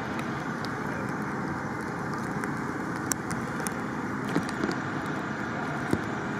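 A steady engine running, with a few short sharp clicks over it.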